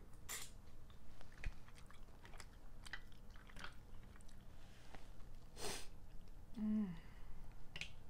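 Mouth sounds of eating steamed mussels: chewing and smacking, with scattered clicks of mussel shells and a longer slurp a little before six seconds in. A short low hum of a voice follows near seven seconds.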